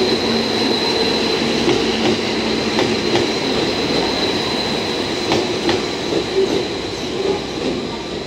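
DEC741 diesel-electric inspection railcar rolling slowly past along a station platform: a steady running rumble with a thin, steady high-pitched squeal and irregular clicks from the wheels crossing rail joints.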